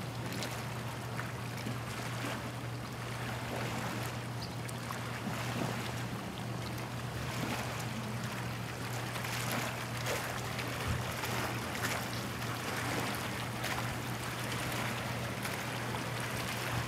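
Small waves lapping and splashing at the water's edge in a light breeze, with wind noise and a steady low hum underneath.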